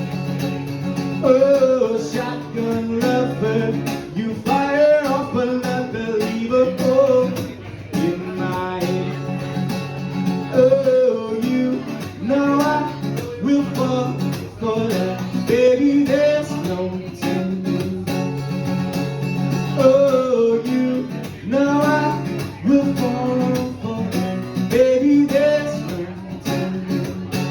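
A guitar plays the song's closing section with a voice singing over it; the music stops right at the end.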